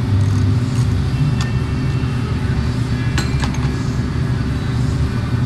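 A steady low mechanical hum runs underneath, with a few small sharp clicks from wires and connectors being handled, about one and a half and three seconds in.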